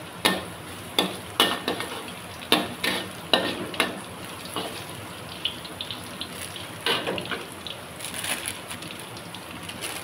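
Garlic cloves sizzling in oil in a metal wok, with a metal wok spatula scraping and knocking against the pan as it stirs. The knocks come mostly in the first four seconds, with a few more near seven seconds.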